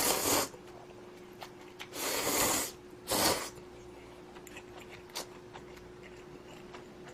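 Three short, breathy bursts of noise from a person eating spicy instant budae-jjigae ramen: mouth and breath sounds of eating the noodles. A faint steady hum runs underneath.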